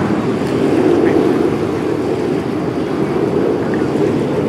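Steady distant rumble of an Aermacchi MB-339 jet tumbling through a solo aerobatic manoeuvre, mixed with wind noise on the microphone.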